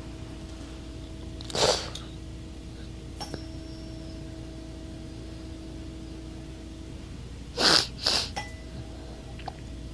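Three short, sharp breaths through the nose: one alone, then a close pair near the end.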